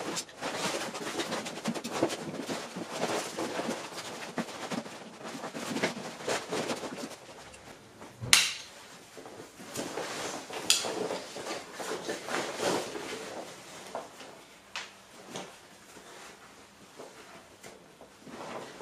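Fox chest waders rustling and flapping as they are stepped into and pulled up, with scattered knocks and two sharp clicks about eight and eleven seconds in.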